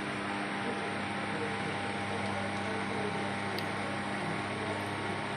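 Steady mechanical hum with a constant hiss underneath, unchanging in level.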